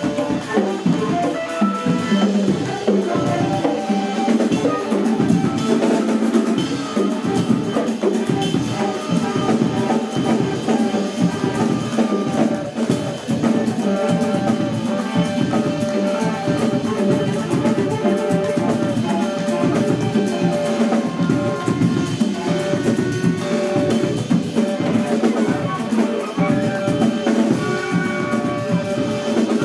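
Live improvising ensemble playing a dense, free passage: a drum kit played busily with a constant stream of hits, under held saxophone and other instrument notes.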